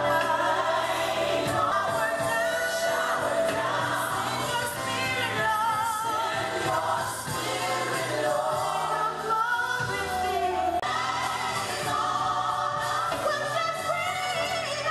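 Gospel song with voices singing long, wavering notes over a steady bass line.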